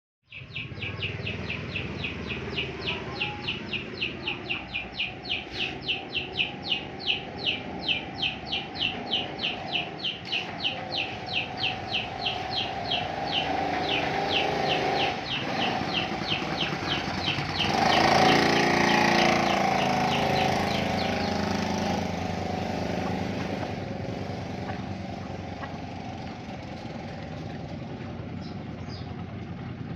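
A small fishing boat's motor running steadily, with a rapid train of high chirps, about four a second and slowing, over the first half. A louder rushing noise swells and fades around two-thirds of the way through.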